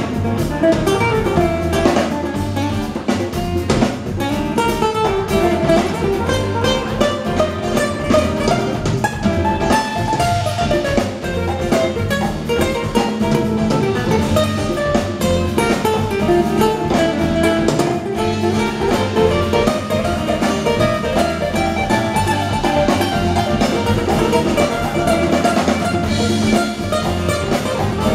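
A live acoustic band playing: two acoustic guitars, bass guitar and hand drums such as congas, in a continuous, steady groove.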